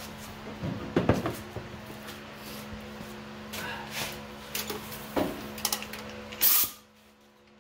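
Clicks and knocks of a pneumatic air chisel and its bit being handled and fitted, over a steady low hum. About six and a half seconds in there is a short, loud hiss of compressed air, and then the sound drops away to near quiet.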